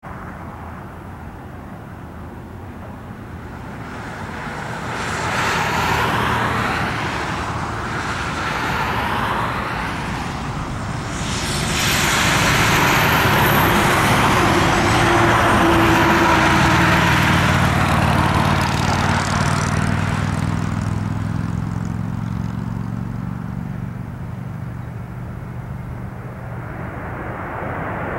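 Jet engines of a Boeing 737-900ER airliner coming in to land. The engine noise builds as it approaches, is loudest for several seconds around touchdown, and eases to a lower steady hum during the rollout.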